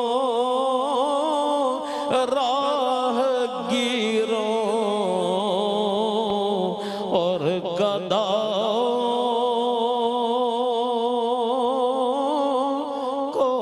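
An elderly man's voice chanting a naat, an Urdu devotional verse in praise of the Prophet, in long held notes that waver and slide between pitches.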